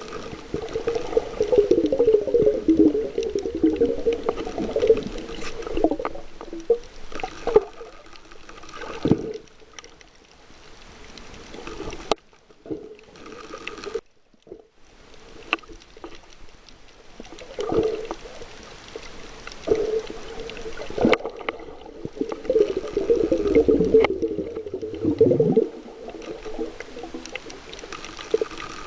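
Muffled underwater noise heard through a submerged camera: uneven gurgling and sloshing of water in swells, with scattered sharp clicks and a brief dropout about halfway through.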